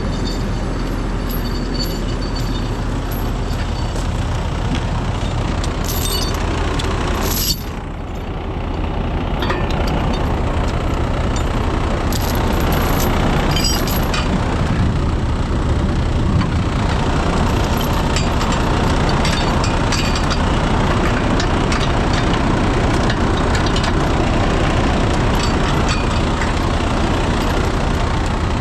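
Heavy-duty rotator wrecker's diesel engine running steadily, with a few light metallic clinks of chain or rigging.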